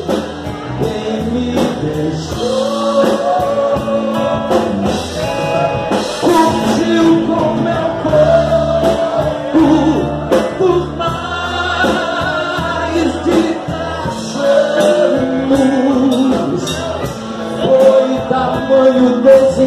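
Live rock band playing amplified through a PA: a drum kit keeping a steady beat under a male lead voice singing into the microphone.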